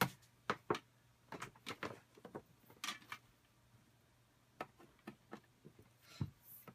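Scattered clicks and light knocks of hands handling cables and plugging a 12-volt power lead into the back of a rack-mount amateur radio repeater, over a low steady hum.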